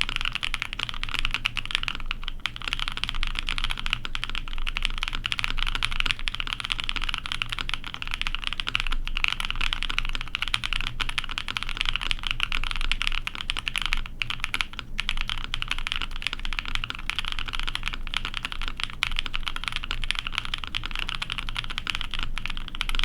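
Continuous fast typing on a Chimera 65 mechanical keyboard with a half POM plate, GMK keycaps and lubed Black Cherry Pie frankenswitches: a dense, steady stream of key clacks with a few brief pauses.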